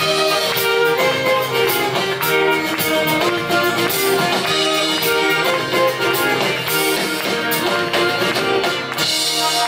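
Live band playing an instrumental passage with acoustic guitar, violin and drums over a club PA, without singing. Near the end the song stops and the crowd starts cheering.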